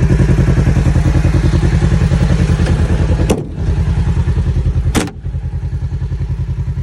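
Kawasaki KRX 1000's parallel-twin engine idling with a steady, rapid pulse. There are two sharp clicks, about three and a half and five seconds in, and after the second one the engine sounds quieter.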